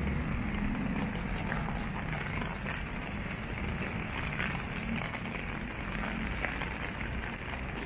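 Rainy city street ambience: a steady low rumble of traffic with the hiss of rain and wet roads.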